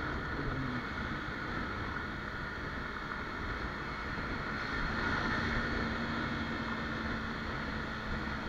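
Wind rushing over the camera microphone with road and engine noise from a Kawasaki Ninja 300 motorcycle riding at road speed. A faint steady hum joins in about halfway through.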